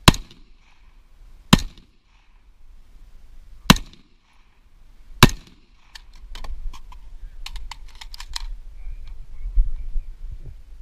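Four single gunshots from a handheld firearm, fired about one and a half to two seconds apart. After them comes a run of quicker, much lighter clicks and rattling.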